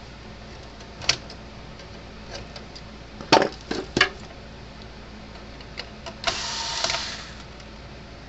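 A few sharp clicks and knocks, the loudest two about three and a half and four seconds in, then a scrape or rustle lasting about a second, made by handling the opened fence charger's case and circuit boards.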